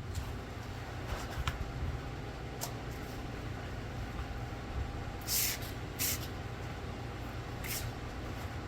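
A handheld power tool for sanding and buffing paint runs steadily on the freshly clear-coated bumper, with a low even hum. Three short hisses come through about five, six and seven and a half seconds in.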